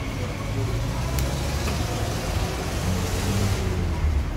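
Steady low background rumble with a couple of faint light clicks about a second in.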